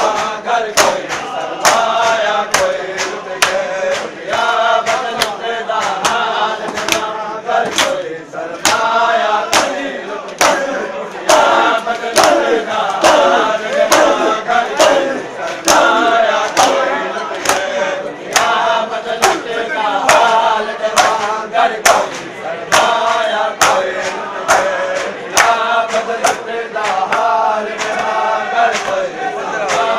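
A crowd of men chanting a noha, a mourning lament, in chorus while beating their bare chests in unison in matam. The sharp hand slaps come on a steady beat, about three every two seconds, under the chanting.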